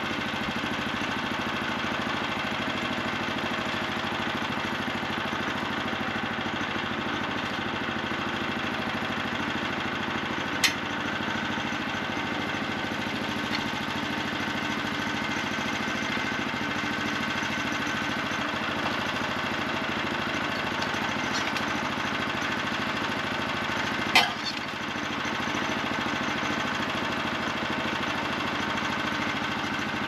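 An engine idling steadily, with two sharp knocks, about eleven and twenty-four seconds in, as a log is rolled and worked into place on a sawmill bed with a cant hook.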